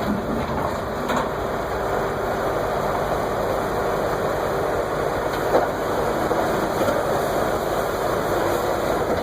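Excavator's diesel engine running steadily, with a couple of short knocks.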